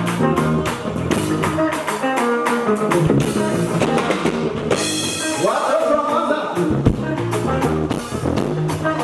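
Live band music with a steady drum-kit beat and guitar, and a voice singing over it. A bright cymbal wash comes in about five seconds in.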